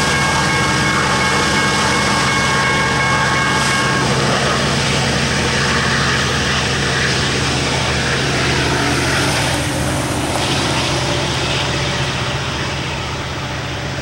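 Low rumble of a BNSF coal train and its EMD SD70ACe diesel locomotive moving away, easing slightly toward the end. A steady high whine in the first few seconds cuts off about four seconds in.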